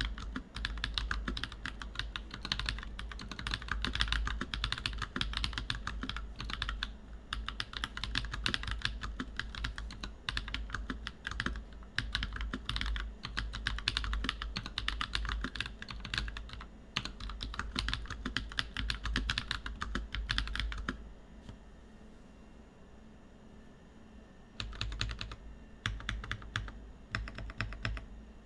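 Fast typing on a plateless DISCIPLINE V2 65% mechanical keyboard with lubed NovelKeys Blueberry tactile switches: a dense, continuous stream of keystrokes. It pauses for about three seconds near the end, then resumes briefly.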